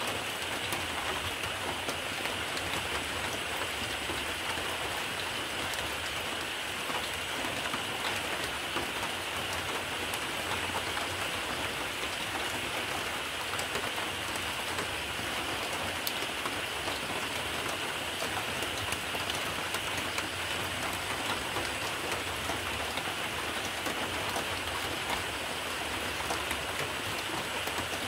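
Steady rain falling on a surface, an even hiss dotted with many small drop ticks, unchanging throughout.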